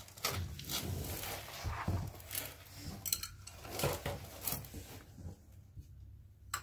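Irregular rustling and knocking handling noise for several seconds, then a single sharp click from a training clicker near the end, marking the cat's behaviour during clicker training.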